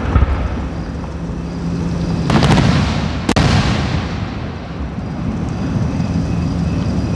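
Aerial fireworks going off: a deep boom right at the start, a louder cluster of bangs with crackle about two and a half seconds in, then a single sharp report just after, with a low rumble lingering between the shots.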